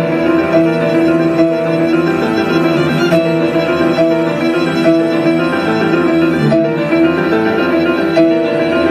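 Live music from bowed strings, playing slow, held notes that change every second or so, with piano.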